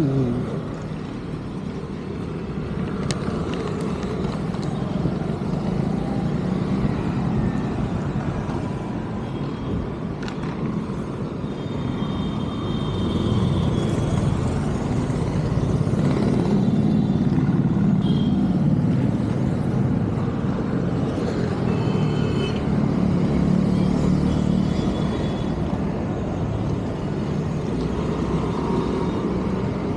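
Motor vehicle running on a road: a steady low rumble that grows a little louder in the middle, with brief faint high tones now and then.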